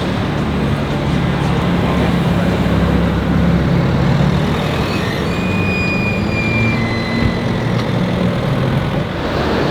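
A car engine running steadily at low revs, its hum rising and falling a little. A thin, high whine is heard for about two seconds around the middle.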